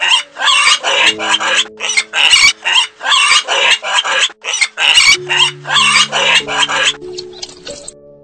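Pig grunting in a rapid run of short grunts, about two a second, over background music with held notes; the grunting stops about seven seconds in.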